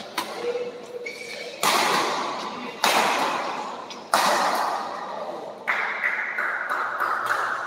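Badminton racket strings striking a shuttlecock in a fast doubles rally: four hard hits about a second and a half apart, each ringing out in the hall, with lighter taps between.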